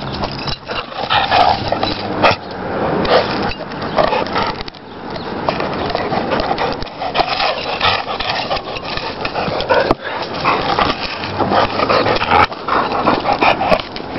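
Brittany spaniel at close range tugging and chewing on a wooden stick, making dog play noises.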